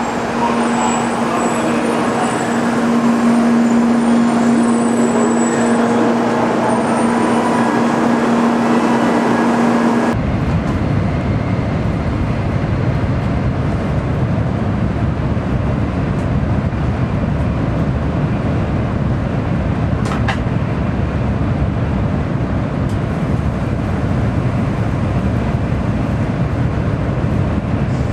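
Shinkansen train noise: for about the first ten seconds a steady hum with a held tone and faint high whines, then after an abrupt cut the steady low rumble inside the cabin of the train running at speed.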